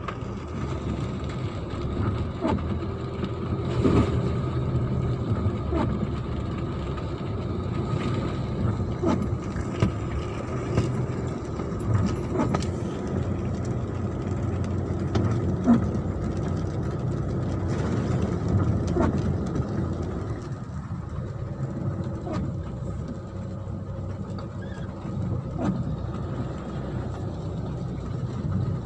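An engine running steadily, with scattered knocks and clatters over it.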